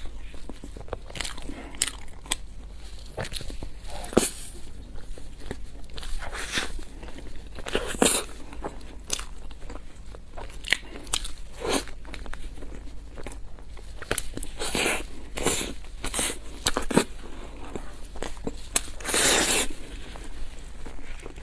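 Close-miked eating of a soft bread roll coated in pork floss with a creamy filling: wet bites, chewing and lip smacks, coming as irregular short clicks. There are a few longer noisy stretches, about 15 seconds in and near the end.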